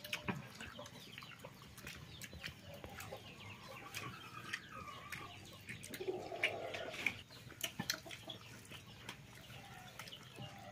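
Domestic chickens clucking now and then, among scattered light clicks and taps.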